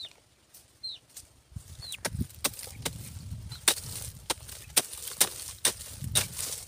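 Short-handled metal hoe chopping and scraping into dry, leaf-littered soil: a run of sharp strikes at about two a second, starting about two seconds in.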